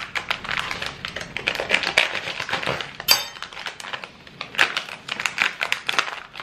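Plastic packaging of sliced salami crinkling and rustling in irregular bursts as it is handled and pulled open, with one sharp clink about three seconds in.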